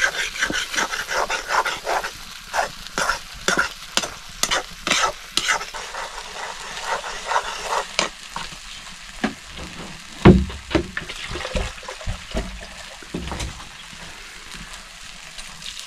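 Squash root curry frying in a pan and being stirred: quick repeated scraping strokes over a steady sizzle for the first half, then a few dull thumps about ten seconds in, the first of them the loudest sound.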